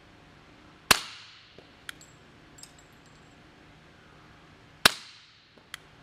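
Two suppressed .45 ACP pistol shots from an H&K Mk23 with a SilencerCo Hybrid 46 suppressor firing subsonic 230 gr ammunition, about four seconds apart. Each is a sharp report with a short fading tail, followed about a second later by a fainter clink.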